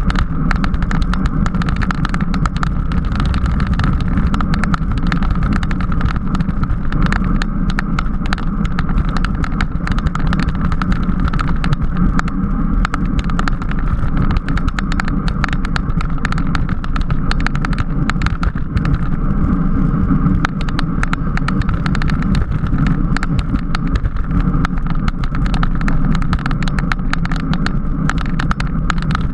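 Steady, loud wind rushing over the microphone with road rumble, from a racing bicycle ridden at speed.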